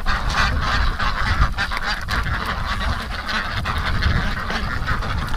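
A flock of domestic ducks and geese quacking and honking without pause, many calls overlapping, over a steady low rumble of strong wind on the microphone.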